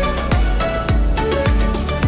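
Background music with a steady beat: a deep, pitch-dropping kick drum about twice a second under held melodic notes.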